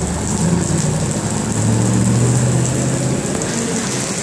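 City traffic on a rain-wet street with steady rain hiss; a vehicle's engine hum swells in the middle and fades.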